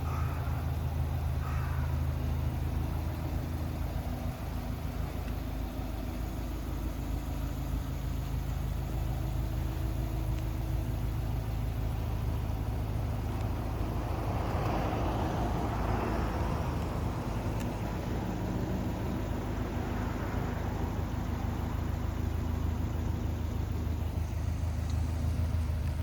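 Subaru Impreza WRX STI (GDB) turbocharged flat-four engine idling steadily through an aftermarket Fujitsubo (FGK) muffler.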